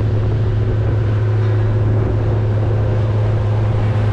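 Motorboat engine running at a steady cruising speed, a constant low hum, with the rush of water and wind noise as the boat moves across choppy water.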